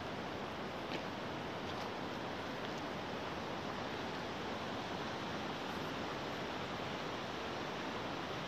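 Steady rushing noise with no pitch or rhythm, with a few faint ticks about one and two seconds in.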